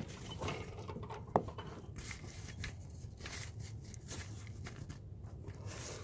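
Light metallic clicks and rattles of a slack, stretched timing chain being moved by hand against its sprockets and guides on a GM 3.6 High Feature V6, over a low steady hum. There is a sharp click at the very start and another about a second and a half in.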